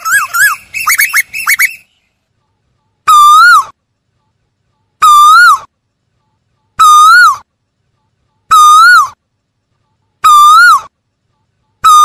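Asian koel calling: a quick run of short whistled notes, then after a pause a loud, clear whistled note that rises and falls, repeated about every 1.7 seconds, five or six times.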